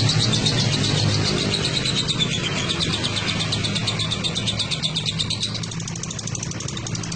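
Lovebird singing a long, fast chattering trill of rapidly repeated high chirps, the kind of extended 'ngekek' song used as master song for fighter lovebirds, easing off a little near the end. A steady low hum runs underneath.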